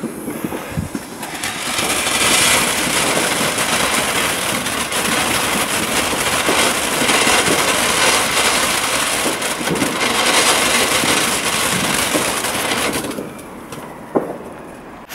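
Garden firework fountain hissing steadily as it sprays a column of sparks. It builds up about a second in and dies away about two seconds before the end.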